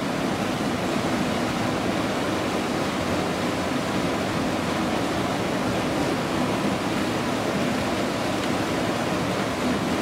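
Small waterfall pouring into a stream: a steady rush of falling water.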